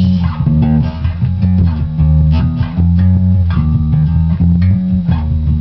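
Bass guitar playing a repeating riff of plucked low notes.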